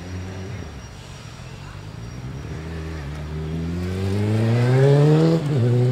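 A road vehicle's engine accelerating, its pitch rising steadily and growing louder, then dropping abruptly at a gear change near the end.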